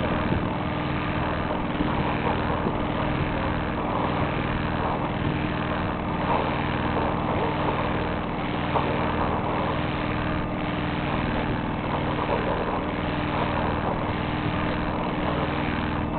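Sailboat's engine running steadily while motoring, a constant drone with a steady hum, over the rush of water along the hull.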